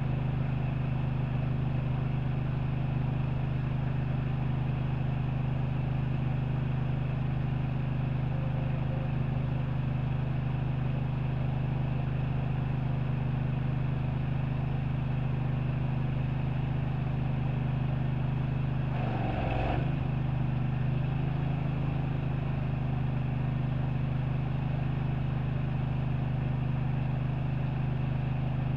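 An engine running steadily with an even low drone, with one short burst of noise about two-thirds of the way through.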